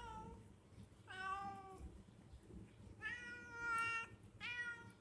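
Domestic cat meowing: the tail of one meow right at the start, then three more meows, the middle one the longest at about a second.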